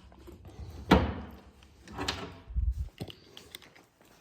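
Two sharp knocks about a second apart, then a short low rumble and a few light clicks: handling and knocking in a garage.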